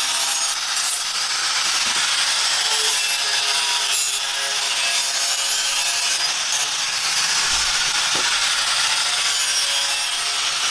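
Continuous rough rasping scrape, steady and unbroken.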